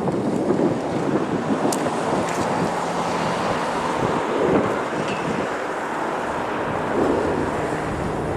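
Wind blowing across the microphone, with a steady low hum underneath.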